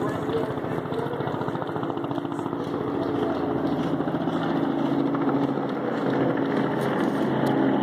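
A small engine running steadily, its pitch stepping slightly a few times.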